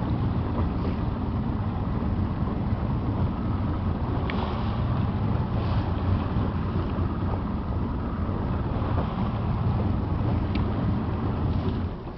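Motorboat under way: a steady low rumble of engine and water against the hull, with wind buffeting the microphone. The level drops off suddenly near the end.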